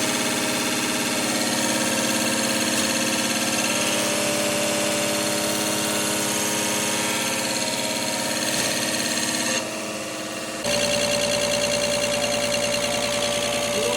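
Machinery running steadily with a mechanical hum. About ten seconds in it drops for a moment, then carries on with a different steady pitch.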